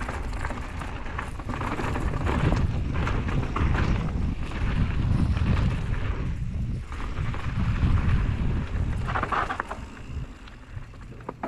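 Wind buffeting the microphone of a mountain bike descending a dirt trail at speed, with the tyres rumbling and crunching over dirt and loose stones. It dips briefly about six and a half seconds in and drops off near the end.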